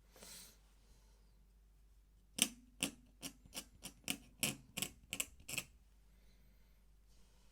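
A run of quick, short scratchy ticks of an ink pen nib stroking across paper, about three or four a second, starting a couple of seconds in and stopping a little past halfway, after a brief soft scrape at the start.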